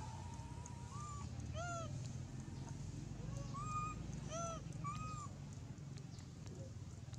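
Baby macaque crying: a string of about six short, high, arching calls, each rising and falling in pitch.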